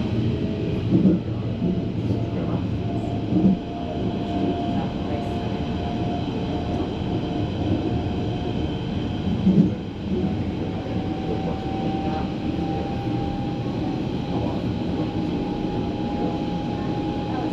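Berlin S-Bahn class 481 electric train running along the line, heard aboard: steady rolling noise with a thin whine slowly rising in pitch, and three short thumps from the track.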